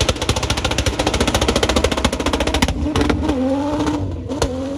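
A modified SUV's engine revving hard during a burnout, its pitch dipping and climbing again a few times, with a fast crackle running over it.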